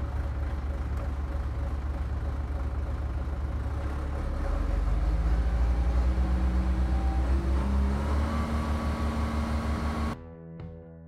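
John Deere 120 excavator's diesel engine running at idle, then throttled up about halfway through, its pitch rising and holding at the higher speed. Near the end it cuts off abruptly and music takes over.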